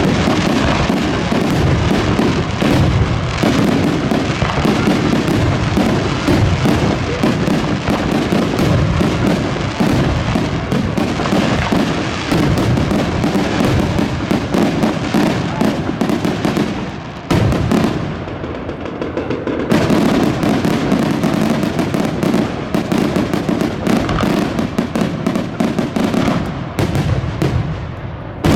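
Fireworks display: a dense, rapid barrage of bangs and crackles, thinning out suddenly a little past the middle for about two seconds before the barrage resumes.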